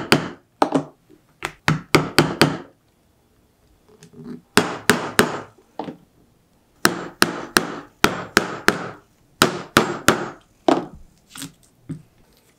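A mallet strikes a metal leather punch, driving it through a leather strap into a cutting board. The sharp taps come in quick runs of three to five, with short pauses between runs.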